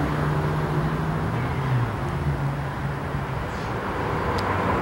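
Steady low engine hum over outdoor background noise, with a faint click near the end.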